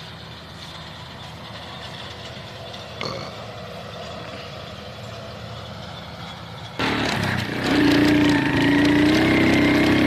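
Steady hum of traffic on a highway bridge, with a truck crossing. About seven seconds in it cuts suddenly to a much louder motorcycle engine running under load, its pitch wavering as it climbs a dirt track.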